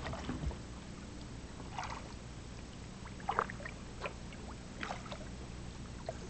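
Kayak paddle strokes in calm river water: a soft splash and swish about every second and a half.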